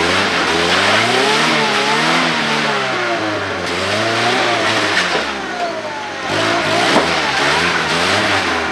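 Ford Ranger pickup's engine revving up and down again and again, several rises and falls in pitch, as the truck churns through a deep mud rut.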